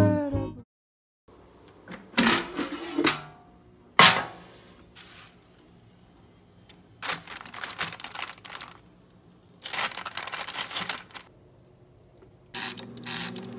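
Background music cuts off, then scattered handling noises: a sharp click about four seconds in and several short bursts of rustling or crinkling. A steady hum starts up near the end.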